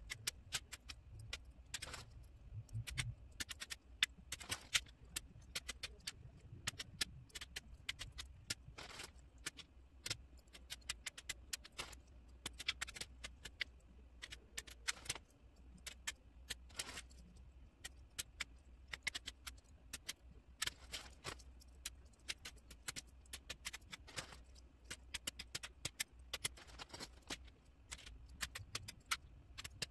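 Cardboard jigsaw puzzle pieces being sorted by hand and dropped into plastic puzzle sorter trays: many light, irregular clicks and taps, several a second, over a low steady hum.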